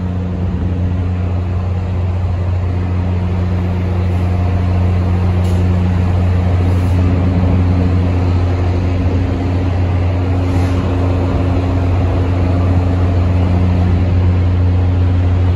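A locomotive running steadily: a loud, low engine drone with a steady hum over it, slowly growing a little louder.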